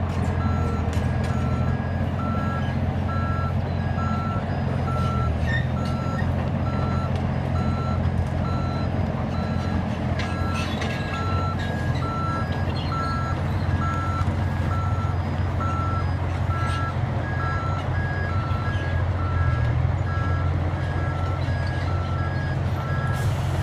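Heavy-haul truck tractor reversing with a lowbed trailer: its diesel engine runs steadily under a reversing alarm beeping about once a second. A second, slightly higher-pitched beeper joins about halfway through.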